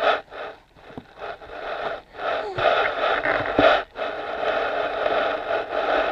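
A baby breathing hard and making breathy, huffing sounds close to the microphone, in short stretches with brief gaps.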